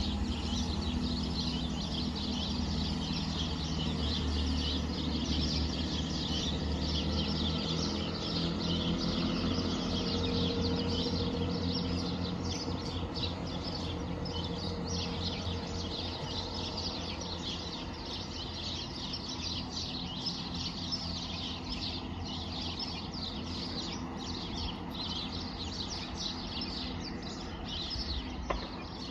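Class 165 diesel multiple unit pulling out. Its low engine drone is strong for the first several seconds, then fades away as the train leaves, while small birds chirp continually.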